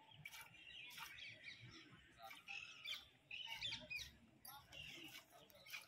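Faint hand-milking: short hissing squirts of milk into a steel pot, about two a second, with birds chirping.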